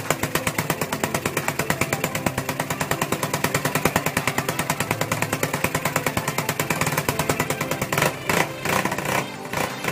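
Honda TMX155 single-cylinder four-stroke motorcycle engine running through an aftermarket exhaust pipe, with a rapid, even firing beat. Its improvised ignition, an XRM125 CDI on battery supply, is firing. The beat turns uneven in the last two seconds or so.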